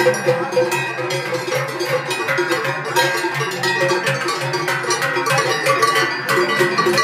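Many cowbells clanging together without a break, their ringing tones overlapping in a dense, loud jangle.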